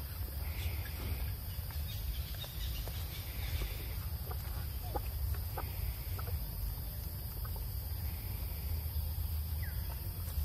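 Outdoor ambience: a steady high insect drone over a low rumble, with scattered short bird calls, most of them in the middle of the stretch.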